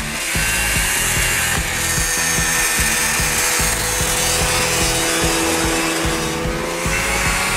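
Yamaha snowmobile engine running steadily as the machine drives past, towing a passenger sled over packed snow. It gets louder about half a second in as it comes close.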